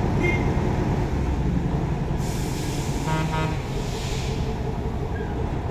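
Heavy diesel engine idling with a steady low rumble, with a burst of compressed-air hiss about two seconds in and a softer one near four seconds, and a brief pitched toot a little after three seconds.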